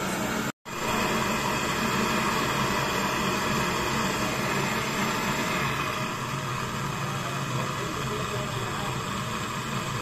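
Gas brazing torch flame running with a steady hiss while heating a copper pipe joint on a refrigerator compressor. The sound drops out for an instant about half a second in.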